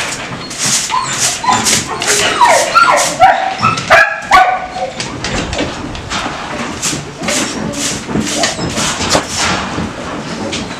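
Shelter dogs whining and yipping, a cluster of high, bending whimpers in the first half, over repeated short scuffing noises.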